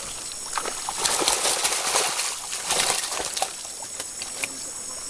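Water splashing and sloshing in quick, irregular splashes, busiest in the first half.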